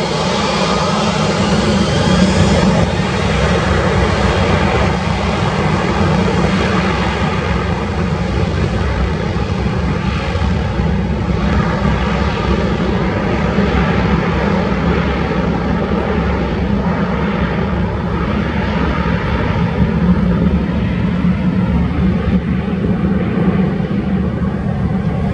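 The General Electric CF6-80 turbofan engines of an Airbus A330-300 run in a loud, steady jet roar as the airliner rolls past on the ground. The higher hiss dulls toward the end as it moves away.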